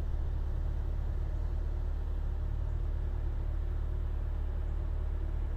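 Chevrolet Corvette Stingray's 6.2-litre V8 idling: a steady low rumble.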